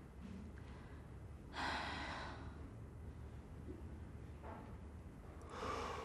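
A woman sighing: a breathy exhale about one and a half seconds in, and another softer one near the end, over quiet room tone.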